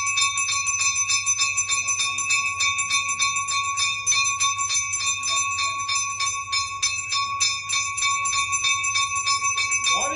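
Temple bell rung fast and evenly, about five strokes a second, its ringing tone held unbroken as one stroke runs into the next.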